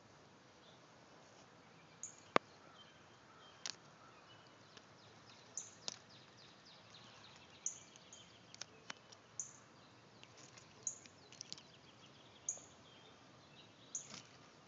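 A small bird chirping repeatedly outdoors: short, high chirps about every second and a half, each dropping slightly in pitch. A few sharp clicks sound close to the microphone, the loudest about two and a half seconds in.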